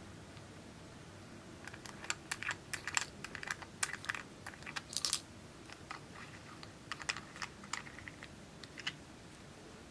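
Slime being squeezed and pressed by hand, giving a quick, irregular run of clicks and small pops as air pockets burst, thickest in the first half and thinning out near the end.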